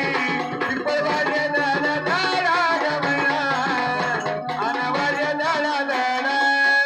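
Live Marathi devotional folk song: a singer's voice carrying a melody over an electronic keyboard and a hand drum keeping a steady beat.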